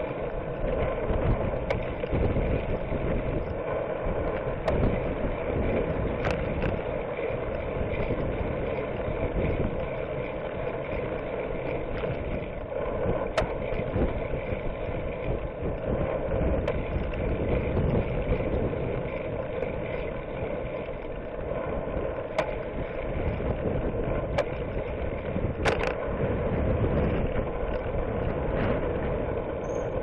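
Road and traffic noise recorded from a moving bicycle: a steady rumble of vehicles and wind with a few sharp clicks scattered through.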